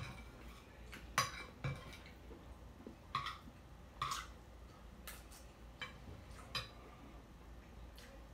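Close-up eating sounds: chewing with scattered sharp clicks and clinks, about one a second, some of them a metal spoon on a plate of bacon, sausage and grits.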